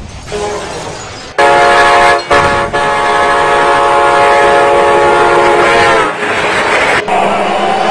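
Train horn blowing one long, loud blast, a chord of several notes held for about four and a half seconds and cut briefly twice in its first second, after a fainter short toot. The horn is followed by a rushing noise.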